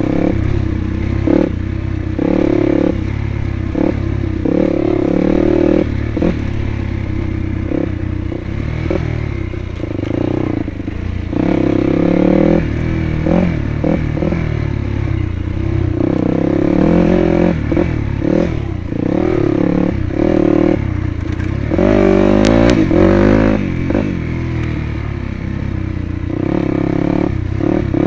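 Dirt bike engine ridden along a rough dirt trail, its revs rising and falling over and over as the rider works the throttle.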